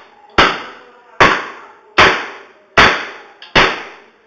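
Repeated hard blows on a computer hard drive's metal casing, one about every 0.8 seconds, five in all, each with a short ringing tail.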